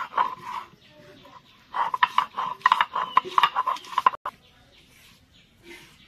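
Stone roller grinding ginger on a flat sil grinding stone: rough, rhythmic scraping strokes, one short spell at the start and a longer run of quick strokes from about two seconds in that stops abruptly.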